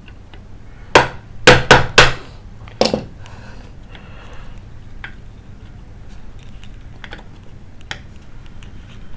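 Pliers clicking and knocking against a rusted screw with a broken head on a water pressure pump's cover, failing to turn it. Four sharp clicks come in quick succession, then a fifth near the three-second mark, followed by a few faint ticks.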